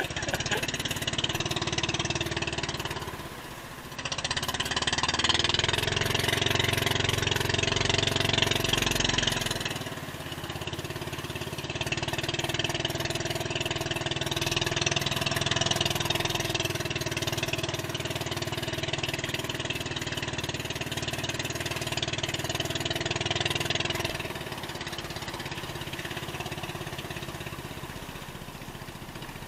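Small boat engine of a motorized outrigger canoe running steadily under way, with water rushing along the hull. Its level dips briefly about three seconds in, rises for several seconds, then eases off twice, near ten seconds and again near the end.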